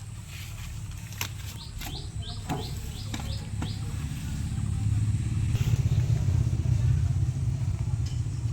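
Engine of a farm vehicle running with a low rumble that grows louder from about halfway through, as if coming closer or under more throttle.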